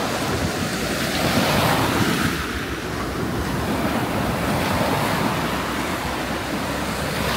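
Rough sea surf breaking on the shore: a continuous rush of waves that swells and eases, with wind buffeting the microphone.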